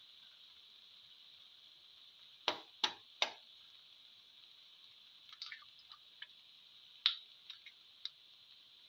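Eggs frying in oil in a pan: a steady high sizzle with scattered small pops. Three sharp knocks come close together about two and a half seconds in.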